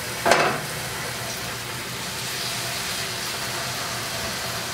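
Raw chicken breast pieces frying in hot oil in a skillet, a steady sizzle, with a short louder burst of sizzle just after the start as a piece goes into the pan.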